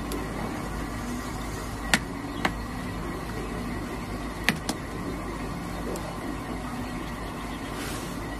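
A steaming aluminium pot of greens cooking over a wood fire gives a steady low hiss and hum. A metal ladle stirring in the pot clinks sharply a few times, about two seconds in and again around four and a half seconds in.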